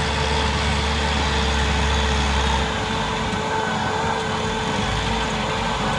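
Eagle 9700 wheel trencher's engine running steadily under load as its digging wheel cuts a drainage trench, a continuous mechanical drone with a steady hum. The deep low rumble drops away a little before halfway through.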